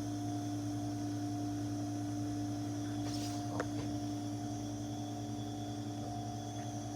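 Steady electric motor hum holding a few fixed pitches, with a single light tap about three and a half seconds in.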